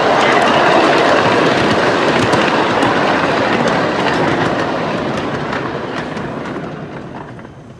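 Small ride-on passenger train rolling along its track with clicking wheels, fading as it moves away and mostly gone near the end.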